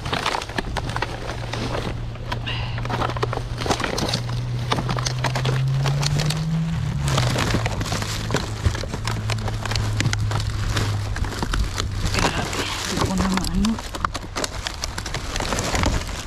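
Rummaging through discarded produce and bags in a dumpster: dense, irregular rustling, knocking and clatter. Under it runs a steady low hum that glides up in pitch and back down about halfway through.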